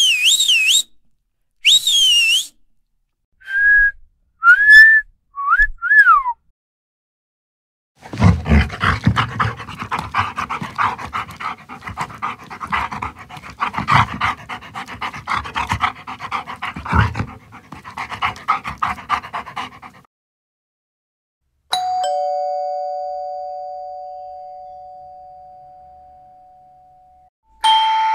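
A run of separate sound clips. First a warbling whistle, twice, then four short high squeaks. Then about twelve seconds of dogs barking, and a doorbell chime that rings out and fades slowly, with another chime starting at the end.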